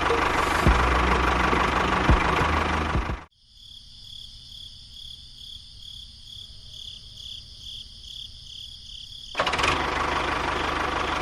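Small engine running with a rough, noisy sound that cuts off abruptly about three seconds in, leaving a faint high whine that pulses two to three times a second, before the running noise comes back near the end.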